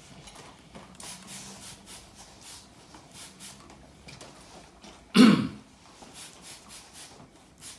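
A man coughs once, sharply, about five seconds in, over faint soft rustling.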